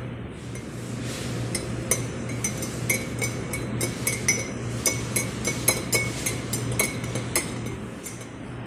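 Metal spoon stirring coffee in a ceramic mug, clinking against the sides again and again, with a faint ringing from the mug, until the strokes stop a little before the end.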